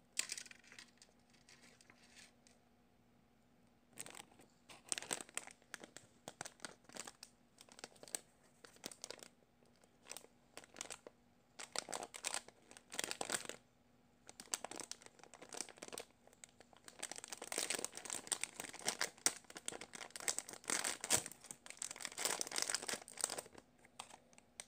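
Thin clear plastic bag crinkling and rustling in the hands as a squishy toy is unwrapped from it. The crackling comes in irregular bursts and is densest near the end.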